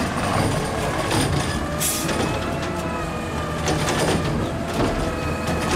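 McNeilus garbage truck running with its diesel engine and hydraulics working as the lift arms raise, with metal clanks. There is a short hiss of air about two seconds in.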